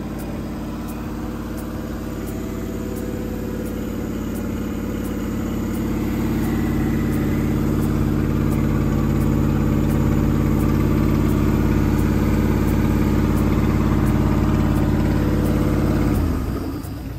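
Overhauled Chrysler Marine 318 V8 running on a test stand, steady and growing louder over a few seconds. About a second before the end it drops back to a slower, quieter idle.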